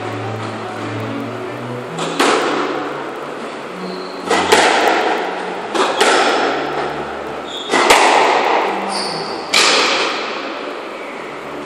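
Squash ball being struck back and forth in a rally: about six sharp smacks a second or two apart, each ringing on in the echo of the glass-backed court.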